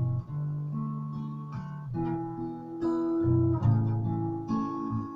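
Acoustic guitar strummed, chords ringing and changing every second or so in the song's closing instrumental.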